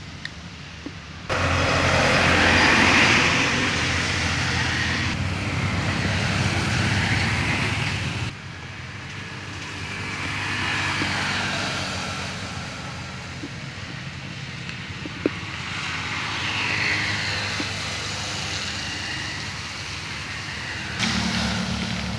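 Motorcycles passing one after another on a wet road, the engine and tyre hiss of each swelling and fading. The sound cuts off abruptly several times, and near the end a steady low engine hum comes in.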